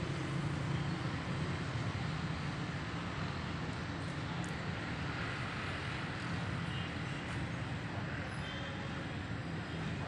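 Steady rumble and hiss of road traffic, with no single vehicle standing out.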